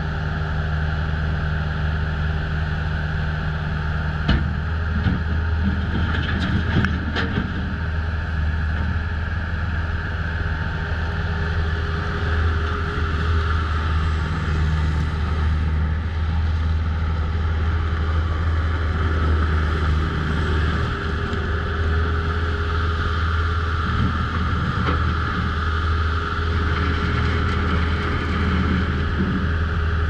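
Bobcat S205 Turbo skid steer loader's turbo diesel engine running steadily, with a few short clanks about four to seven seconds in.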